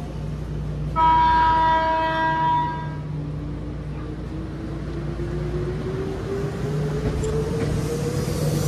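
Train sounding its horn once for about two seconds, starting about a second in, then a motor whine that climbs steadily in pitch as the train gathers speed.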